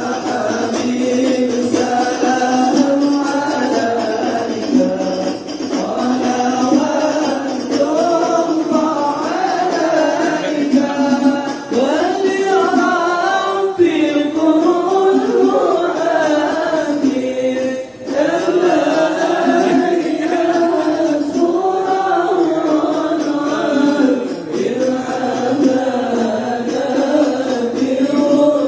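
A group of santri singing a devotional sholawat together in unison, a continuous melodic chant in praise of the Prophet at the mahallul qiyam.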